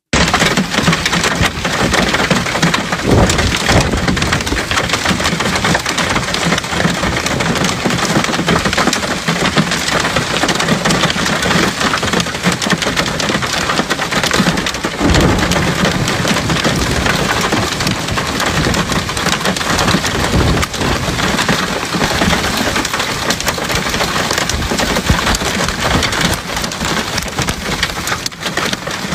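Heavy rain mixed with hail pelting down on open desert ground, a dense steady hiss throughout, with a few deeper surges about three, fifteen and twenty-one seconds in.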